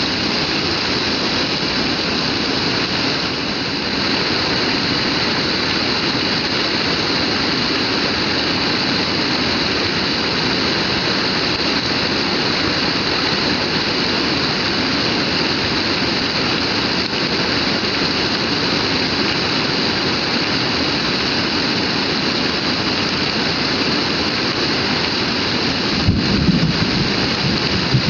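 Heavy rain pouring down in a steady, even hiss. Near the end a brief low rumble rises over it.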